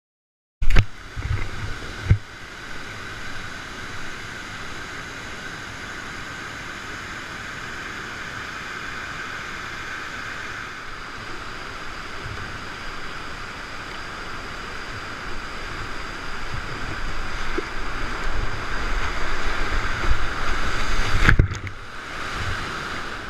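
Steady rush of whitewater on the Rio Valles cascades, with wind gusting on the microphone. Two sharp knocks near the start, and a brief break in the sound about 21 seconds in.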